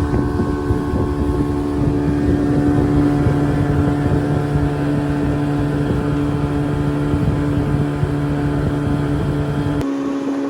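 Engine running at a steady speed, a constant droning hum over a low rumble; the rumble drops out abruptly near the end.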